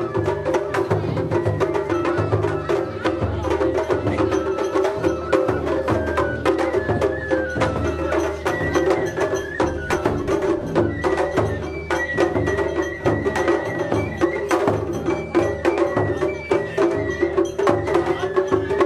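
Japanese festival hayashi played on a festival float: taiko drums beaten in a dense, steady rhythm under held high flute notes.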